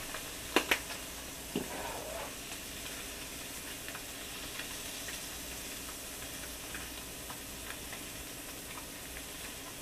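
Flounder fillets frying in a pan, a steady sizzle. Two sharp clicks about half a second in, and a softer one a second later.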